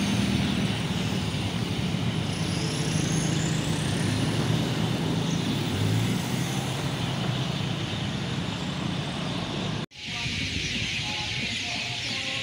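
Street traffic: cars, a pickup truck and motorbikes passing through a junction, with engine hum and tyre noise. About ten seconds in, the sound cuts out for an instant and gives way to a steadier high hiss with faint distant tones.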